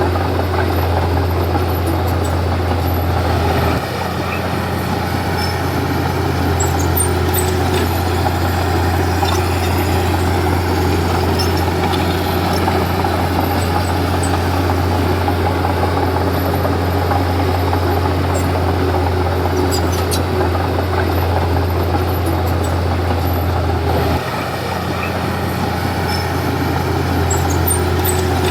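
Komatsu D31P bulldozer's diesel engine running steadily, its low note dropping abruptly about four seconds in and again about four seconds before the end, then building back.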